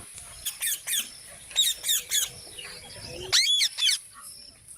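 A parrot giving short, sharp, high-pitched calls in quick clusters, with a louder, longer call about three and a half seconds in.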